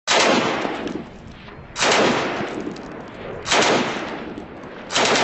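Gunfire: four loud bursts about a second and a half apart, each sudden and dying away in a long echo.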